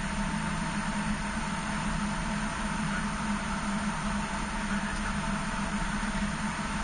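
Steady airliner cockpit noise in flight: an even rush of airflow with a constant low hum.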